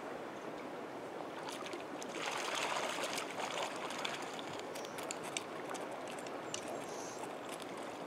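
Steady rush of a flowing stream, with splashing from about two seconds in as a hooked brook trout thrashes at the surface while it is being landed.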